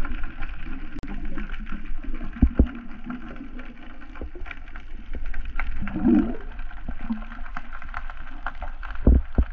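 Water heard through a submerged microphone as a spearfisher kicks with long freediving fins just below the surface. Muffled water noise and bubbling run throughout, with many small clicks and a few heavier knocks that are loudest near the end.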